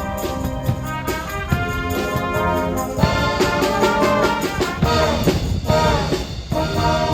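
Brass music with trumpets and trombones playing sustained chords in an orchestral style.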